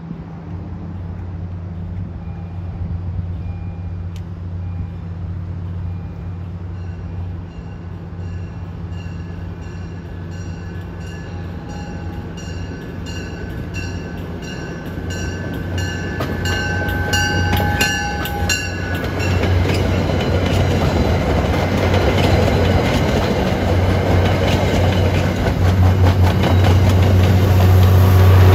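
MBTA Commuter Rail push-pull train approaching and passing close, its diesel locomotive pushing at the rear. A steady low engine drone runs throughout, and a bell rings about once a second through the first two-thirds. From about two-thirds in, the rumble and rush of wheels on the rails swells as the cars go by, loudest near the end as the locomotive passes.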